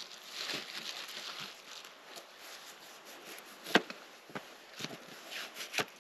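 Rustling, then a few irregular sharp knocks, the loudest about two thirds of the way in.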